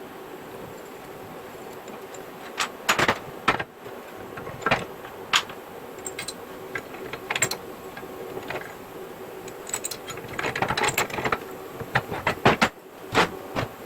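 Irregular metallic clicks, knocks and rattles from steel parts being handled and worked, with a brief burst of rattling near the end and a faint steady hum underneath.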